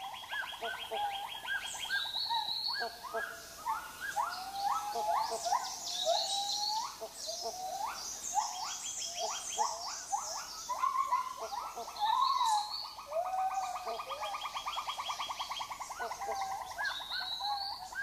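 Tropical rainforest animal chorus: many overlapping calls, short rising whistles and rapid trills, with no single caller standing out.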